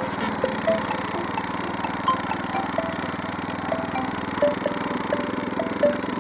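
Kentavr walk-behind tractor's engine running steadily, with short ringing metallic pings scattered through, about two a second.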